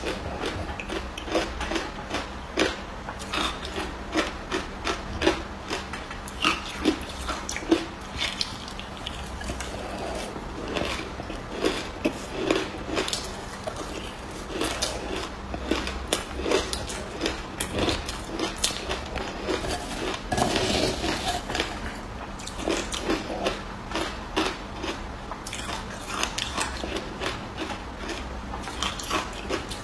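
A person biting and chewing ice close to the microphone, making dense, irregular crisp crunches, several a second.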